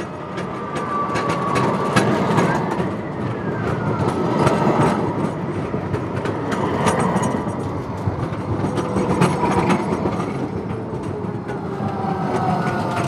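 Electric city tram passing close by: a rising rumble of wheels on rail, with repeated clicks and knocks and faint whining tones that slide up and down in pitch.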